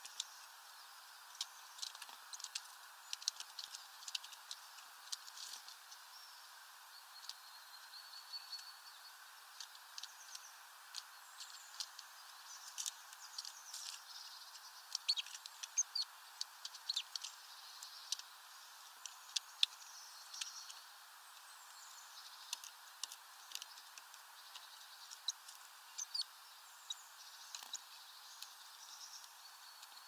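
Small birds at a plastic tray feeder: frequent sharp clicks and taps of pecking at seed, with scattered short high chirps and a brief thin whistle about eight seconds in, over a steady faint hiss.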